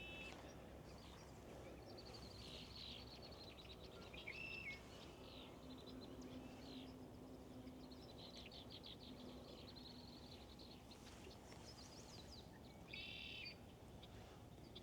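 Faint songbirds singing and calling: several rapid high trills and short chirps, with a louder burst of chirps near the end, over a low steady background hum.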